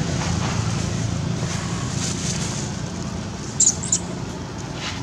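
Baby long-tailed macaque giving two short, high-pitched squeals close together about three and a half seconds in, over a steady background rumble.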